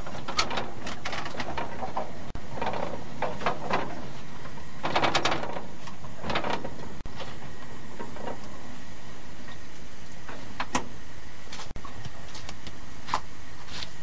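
Narrow-gauge steam locomotive heard from its own cab while moving slowly: a steady running noise with irregular chuffs and clanks.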